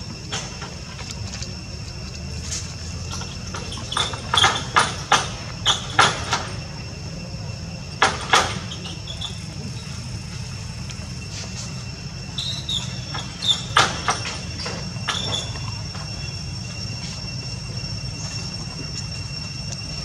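Steady high-pitched insect drone at two pitches over a low rumble, broken by three clusters of sharp clicks or taps, the loudest sounds, about four, eight and fourteen seconds in.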